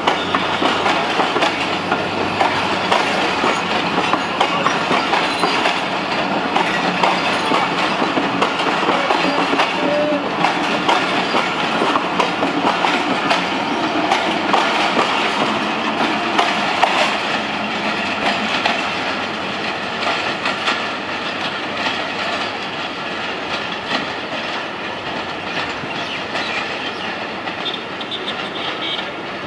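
Pakistan Railways Khyber Mail passenger coaches rolling past, their wheels running over the rails in a steady clatter that slowly fades over the last ten seconds or so as the end of the train draws away.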